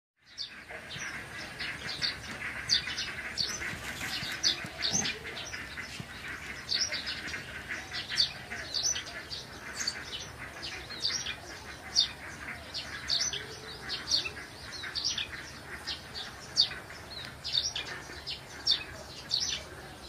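Small birds chirping: a steady stream of short, high, downward-sliding chirps, several a second, over a continuous background chorus. No rooster crow is heard.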